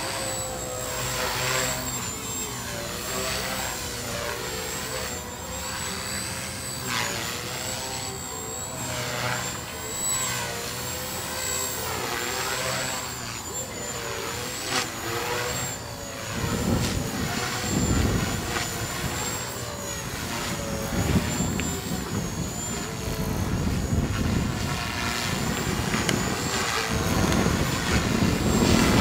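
Skyartec Wasp V4 electric RC helicopter in flight: its brushless motor and rotor whine at a high, steady pitch that wavers up and down with the throttle. About halfway through, a gusty low rushing noise joins and grows louder toward the end.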